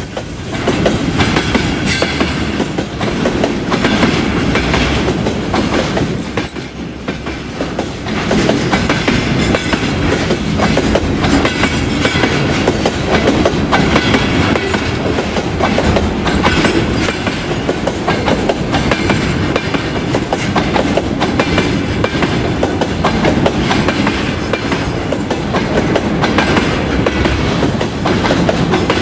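Container freight train rolling past, its wheels clattering rhythmically over the rail joints.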